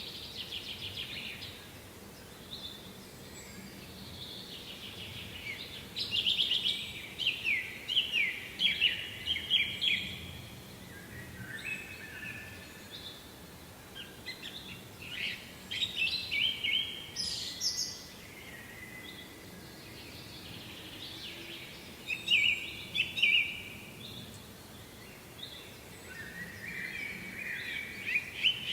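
Songbirds singing: short repeated phrases and quick trills, one after another with short gaps, over a faint steady background hiss.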